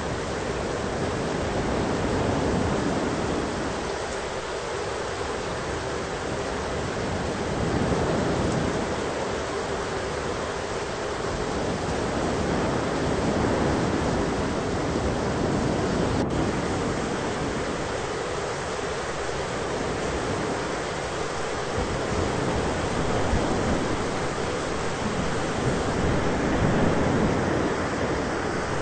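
Thunderstorm ambience: a steady rushing noise with slow swells in the low rumble.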